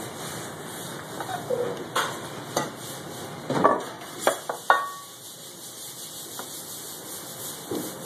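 Ceramic dinner plates being handled, with several sharp clinks over about three seconds; the last clink rings briefly.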